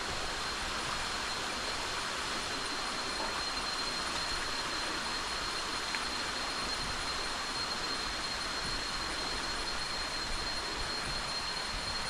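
Steady rushing of a jungle creek's flowing water, with a constant high-pitched insect drone running over it.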